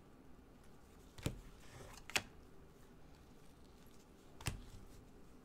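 Glossy trading cards handled by gloved hands: three short sharp snaps as cards are flicked off the front of the stack, the first two about a second apart with a soft sliding hiss between them, the third a couple of seconds later.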